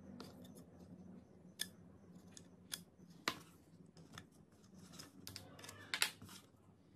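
PVC pipe parts being handled and fitted together by hand, making a scatter of light, irregular plastic clicks and taps, with the sharpest near the middle and near the end.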